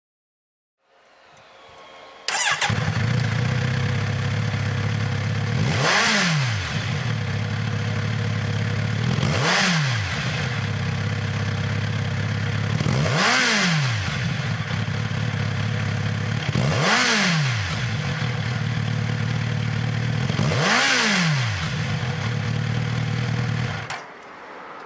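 Kawasaki Z900RS inline-four engine breathing through a WirusWin slip-on sport silencer. It starts up and catches about two seconds in, idles, and gets five quick throttle blips, each rising and falling in pitch. It is shut off near the end.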